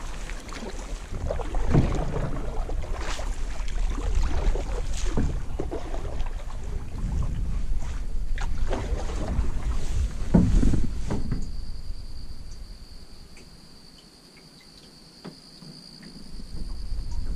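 Canoe paddling: a wooden paddle dipping and pulling through still water, with splashes and knocks against the canoe, over wind rumble on the microphone. Past the middle the strokes stop and it goes quiet, leaving a faint steady high tone, before sound picks up again near the end.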